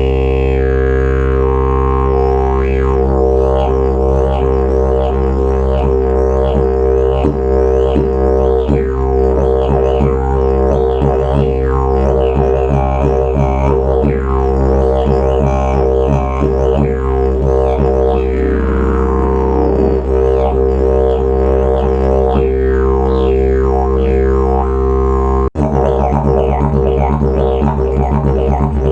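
Kosmika "Bauxite" slide didgeridoo played as one continuous low drone, with the player's mouth shaping overtones that sweep up and down over it. The drone breaks off for a moment about 25 seconds in, then starts again.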